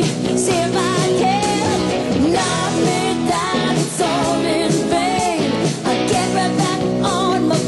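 Background music: a rock-style song with a sung melody over steady instrumental accompaniment.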